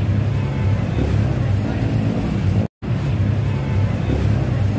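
Road traffic on a busy city street: a steady low rumble of engines. It cuts out to silence for a moment just past halfway.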